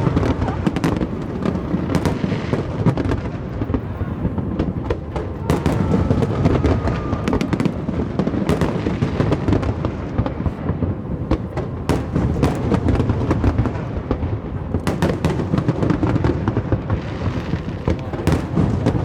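Aerial fireworks display: a dense, unbroken barrage of booms and rumbling, with many sharp cracks and bangs on top.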